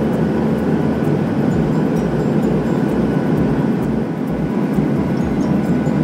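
Steady low drone of a passenger jet's cabin noise: engines and rushing air heard from inside the cabin.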